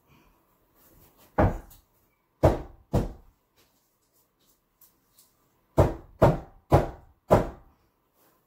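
A wooden loaf mold full of freshly poured cold-process soap batter banged down onto a hard surface seven times, three thumps and then four, to settle the batter and knock out air bubbles.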